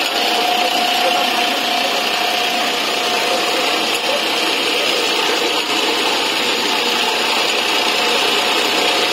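Industrial mattress tape-edge sewing machine running steadily as it stitches binding tape around the mattress edge, with short, tight stitches.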